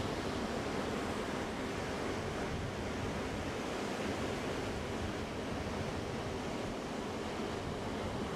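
Ocean surf breaking and washing onto a sandy beach, a steady, even rush of waves with no single wave standing out.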